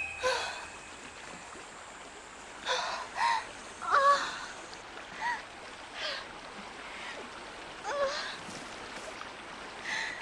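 A woman moaning and gasping in short breaths again and again, feigning a sudden fit of chronic stomach cramps (shaku), over a faint steady hiss.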